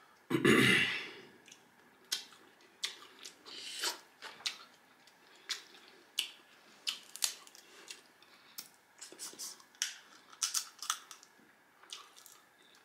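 Crab shell being cracked and picked apart by hand: a scattered string of sharp cracks and snaps, with a short louder burst of noise just after the start.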